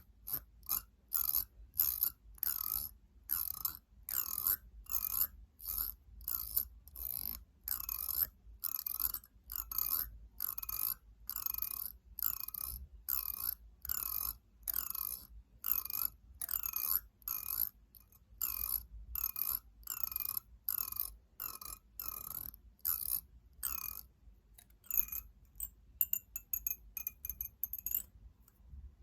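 Fingernails tapping on hard objects in a steady rhythm, a little under two taps a second. Near the end the taps take on a clear ringing tone.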